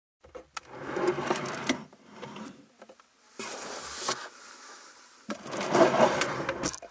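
Hands handling something: rustling and scraping noise in three separate bursts, with scattered sharp clicks and a brief bright hiss in the middle.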